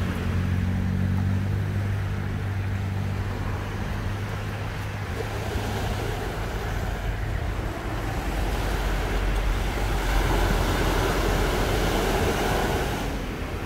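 Small waves washing onto a sandy beach, swelling about ten seconds in as a wave breaks. Under it, an engine's steady low hum fades out over the first half.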